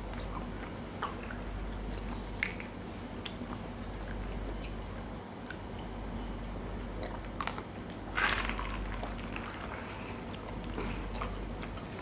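Close-up chewing and biting sounds of people eating stir-fried glass noodles with seafood, with scattered small clicks and a louder breathy sound about eight seconds in.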